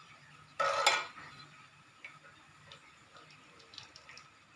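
A metal spatula scrapes once against a steel pan of simmering sugar syrup about half a second in, followed by faint scattered ticks.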